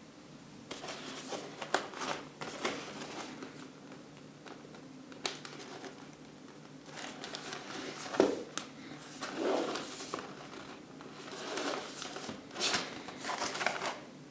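Cardboard burger box being handled and turned over in the hands: irregular scrapes, taps and rustles of fingers and card.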